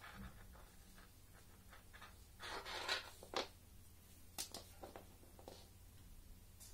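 Faint handling noise from a braided mouse cable being uncoiled and its wire twist tie pulled off: scattered light clicks and rustles, with a louder rustle about two and a half seconds in and a few sharp clicks after it.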